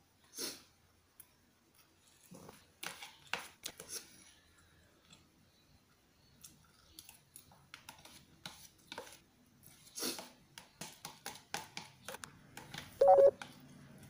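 Eating sounds: slurping and chewing noodles and soup, with scattered clicks of a metal spoon in a plastic bowl. About a second before the end, a short, loud tone is the loudest sound.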